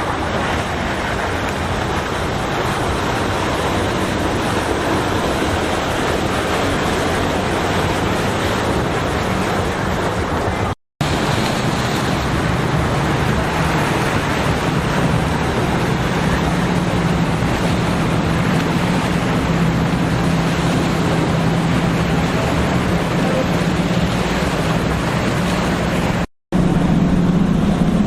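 Powerboat engines running over a loud, steady rush of wind and surf, with the engine hum growing stronger partway through. The sound cuts out for an instant twice.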